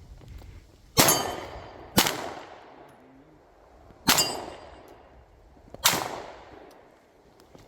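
Four gunshots during a timed 2-gun stage: two about a second apart, then a pause of two seconds, then two more nearly two seconds apart. Each has a long ringing tail with a metallic ring, typical of hits on steel targets.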